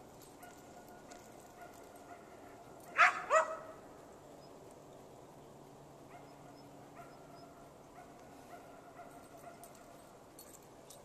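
A Belgian Malinois barks twice in quick succession, about half a second apart, some three seconds in.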